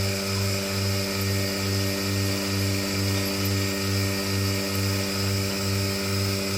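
Milking machine running: a steady electric motor hum with a low throb pulsing about three times a second.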